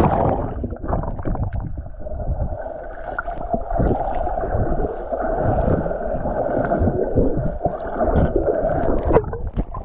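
Waterfall water pouring and splashing close to the microphone, a dense steady rush with uneven low knocks of water striking near it.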